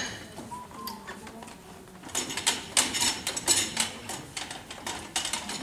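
Loaded barbell's plates and collars clinking and rattling against the bar as it is lifted off the squat stands and held, a run of quick metallic clinks over the second half.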